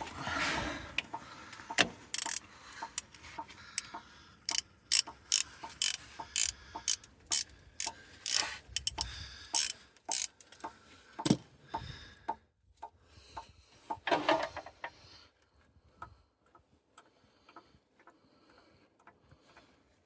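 Ratchet wrench clicking in a steady run of sharp clicks, about two or three a second, that stops about halfway through; after that come only scattered faint clicks and a brief rustle of handling.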